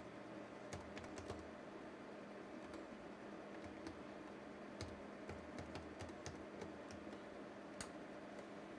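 Typing on a computer keyboard: scattered, irregular key clicks over a steady low hum.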